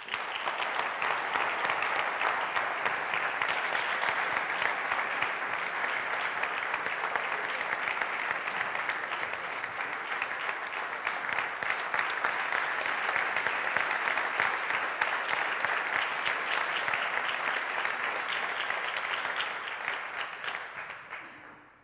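Audience applauding: dense, steady clapping from a seated crowd that fades out near the end.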